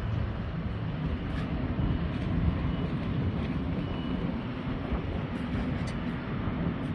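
Four-cylinder diesel engine of a Consolidated Pneumatic towable air compressor running steadily, a low even rumble with a few faint light ticks.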